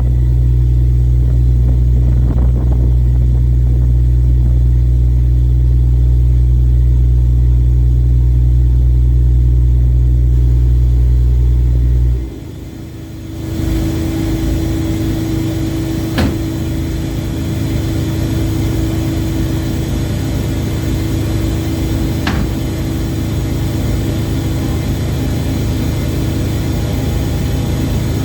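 Ship's engine running with a strong, steady low hum. About twelve seconds in, the hum cuts off abruptly and gives way to a broader, noisier drone with a faint steady tone, broken by two brief clicks.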